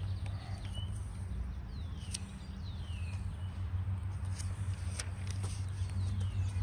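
A steady low hum with a few short falling bird chirps, about two seconds in and again near the end, and a few sharp clicks.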